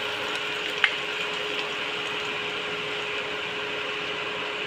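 Potatoes and tomatoes sizzling steadily as they fry in oil in a pan, over a steady low hum, with a single light tap about a second in.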